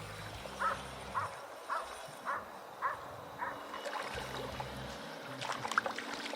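A dog barking repeatedly, about two barks a second, stopping about three and a half seconds in.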